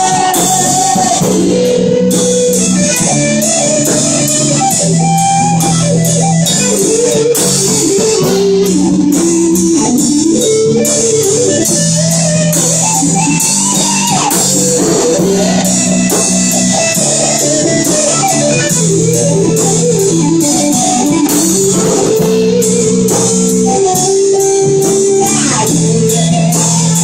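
Rock band playing an instrumental passage: an electric guitar plays a moving lead line over held bass guitar notes and steady drum cymbals.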